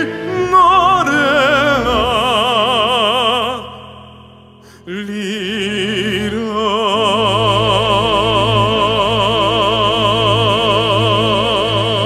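A woman's voice singing a Korean Catholic prayer song, holding long notes with wide vibrato over soft instrumental accompaniment. The sound drops away briefly about four seconds in, then one long final note is held.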